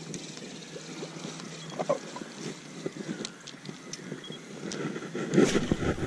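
Wind on the microphone over light lapping water, with a few faint clicks. A stronger rumbling gust of wind noise comes near the end.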